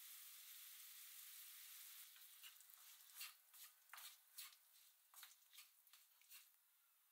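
Faint sizzle of julienned green peppers and carrots stir-frying in a stainless frying pan. From about two seconds in, a run of light taps as wooden chopsticks toss the vegetables against the pan.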